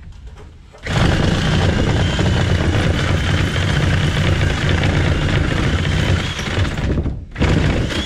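A power saw cutting into the wood framing of a garage stud wall: it runs for about six seconds with a faint wavering whine, stops, then runs again briefly near the end.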